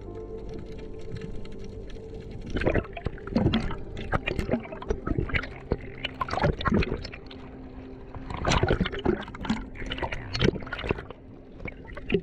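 Water sloshing, splashing and gurgling around an action camera as it moves at and just under the sea surface, in irregular bursts. Faint steady held tones run underneath.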